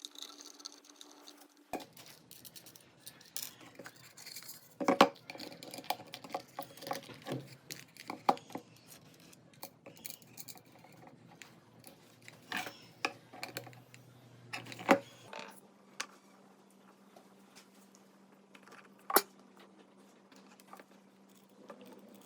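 Irregular light clicks, knocks and rattles of small hard parts being handled and set down on a work surface, with a handful of sharper taps spread through.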